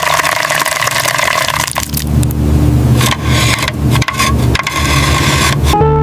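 Motor noise from a small construction machine, with pebbles scraping and rattling as they are moved.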